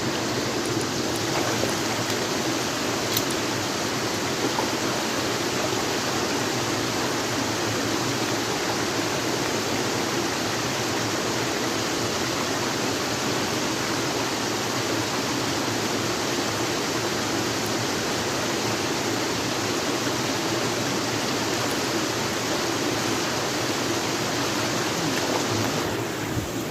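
Mountain river water rushing, a steady unbroken noise that cuts off suddenly at the end.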